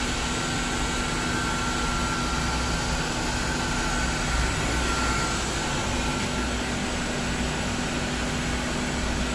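Steady drone of running plant-room machinery, with a constant low hum and a fainter higher whine.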